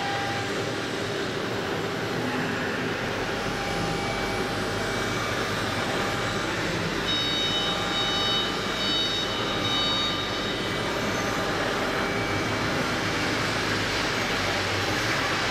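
Steady running noise of a CNC wood router for round columns, with a high whine for a few seconds in the middle.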